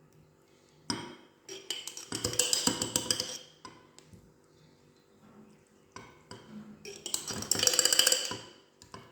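A metal spoon scraping and clinking against a glass jar as thick ground paste is spooned in. It comes in two busy spells, about a second in and again about seven seconds in, with a few lighter taps between.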